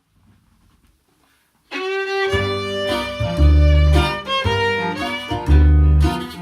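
After about a second and a half of near silence, a fiddle comes in suddenly, playing an instrumental break in a string-band blues. About half a second later it is joined by heavy low bass notes that come back roughly every two seconds.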